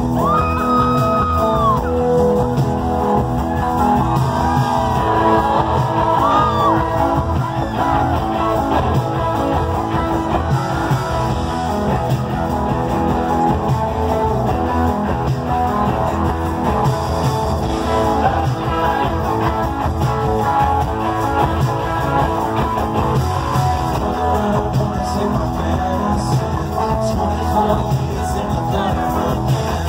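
Live rock band playing loud through the stage PA, heard from the crowd: electric guitar and a lead singer's voice carried over the full band.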